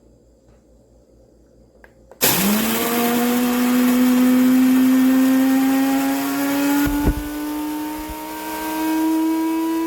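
Cuisinart DGB-450NAS coffee maker's built-in grinder switching on about two seconds in and whirring loudly, its pitch rising slowly as it runs. The rough grinding noise eases about seven seconds in while the motor keeps spinning.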